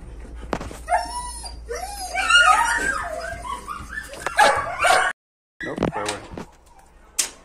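Dog whining and yipping in a run of short, high cries that rise and fall in pitch, cutting off abruptly about five seconds in. A few light knocks and a sharp tick follow.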